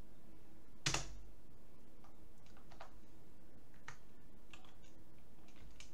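A few scattered keystrokes on a computer keyboard, the first and loudest about a second in, over a faint steady background hiss.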